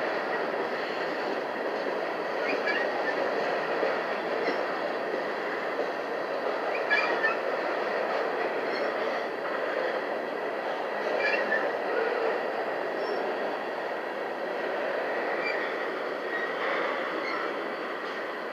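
Covered hopper grain cars of a freight train rolling slowly past: a steady wheel-on-rail rumble, with short clicks and brief high wheel squeaks every couple of seconds.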